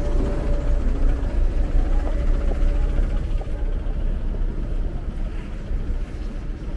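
Low rumble of road traffic, with a faint tune dying out within the first second.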